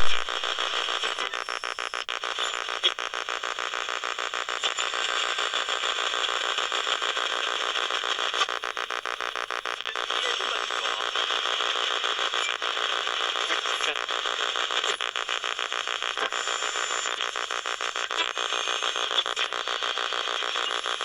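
AM/FM radio hissing with interference: a rapid, steady pulsing buzz over static, with a sharp click at the start. The uploader takes the pulsing for microwave signals aimed at her.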